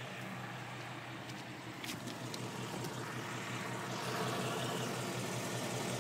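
2011 Ford Mustang GT's 5.0 V8 idling steadily, with a noise the owner likens to belt noise and a few light clicks about two seconds in; it grows louder about four seconds in.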